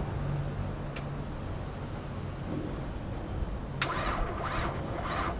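Nissan Skyline engine cranking on the starter without firing, a steady low drone, with a burst of hissy noise about four seconds in. With the fuel hose off, no fuel comes out: the fuel pump is not running.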